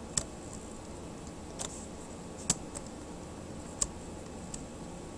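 A few sharp, separate clicks from the computer as the slideshow is advanced, three of them louder than the rest, over a faint steady hiss of room tone.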